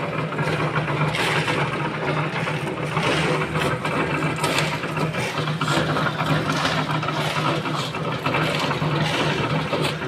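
Portable drum concrete mixer running: a steady motor hum with sand and gravel churning in the turning drum. Shovels scrape and dump aggregate into it throughout.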